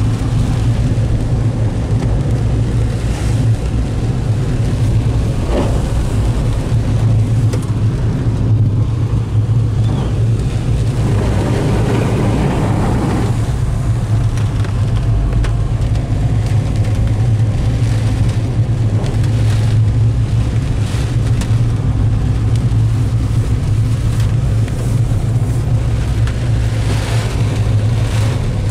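Heard from inside a moving car in heavy rain: a steady low engine and road drone under the hiss of tyres on a wet, partly flooded road and rain on the car. The hiss swells into a louder rush for a couple of seconds about eleven seconds in.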